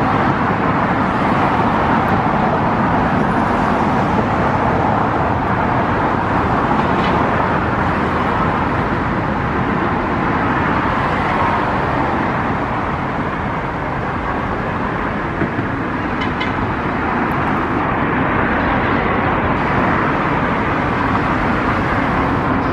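Steady, even rushing noise of road traffic, continuous and without breaks.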